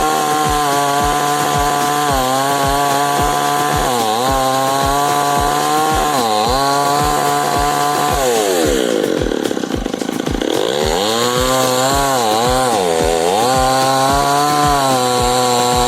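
Chainsaw running at high revs, its pitch sagging briefly several times as it cuts into wood. A little past the middle it bogs down deeply and then climbs back up.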